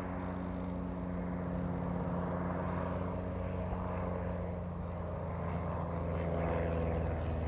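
Single-engine de Havilland Chipmunk overhead, its piston engine and propeller giving a steady drone that grows louder toward the end.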